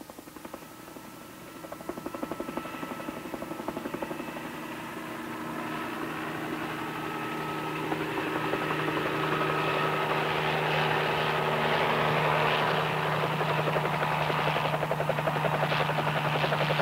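Bell 47G-3 helicopter flying in and setting down, its rotor beating rapidly over the engine's steady hum. It grows steadily louder over the first ten seconds or so as it comes close, then holds at a steady level.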